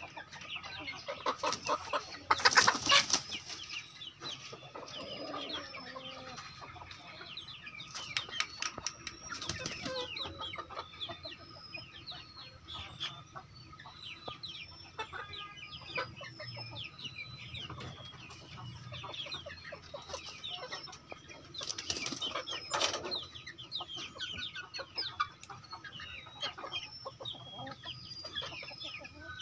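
A flock of kampung (Indonesian native) chickens clucking and calling, with loud bursts of wing-flapping, the loudest about two to three seconds in and others around eight to ten and twenty-two seconds in.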